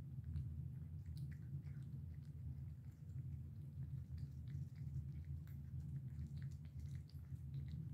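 Cats chewing and lapping sloppy cat food from a plate: scattered small wet clicks and smacks over a steady low hum.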